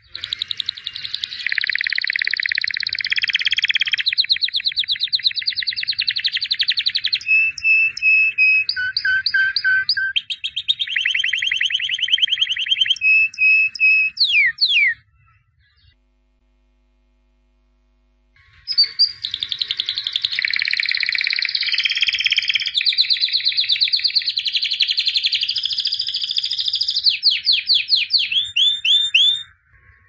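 White domestic canary singing: two long song phrases of fast trills, repeated notes and quick sweeping whistles, with a pause of about three seconds in the middle.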